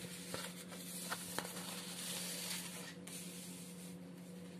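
Faint rustling of paper with a few light taps as a sheet of handwritten notes is shifted and replaced by the next page. The rustle swells about two seconds in, over a steady low hum.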